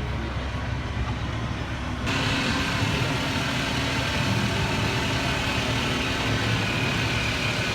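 Heavy construction machine's diesel engine running steadily; about two seconds in the sound jumps abruptly to a louder, brighter steady running.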